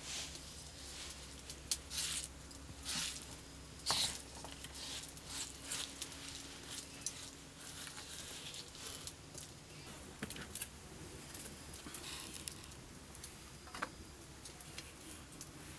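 Irregular soft scrapes, taps and small clicks of hands gathering ground paste off a flat stone grinding slab and setting down small bowls, with later faint handling of wheat flour in a steel basin.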